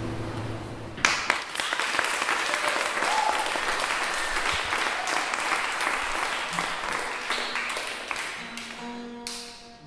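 An acoustic guitar chord rings out, then an audience starts applauding about a second in, the clapping slowly fading over several seconds. A few guitar notes sound near the end.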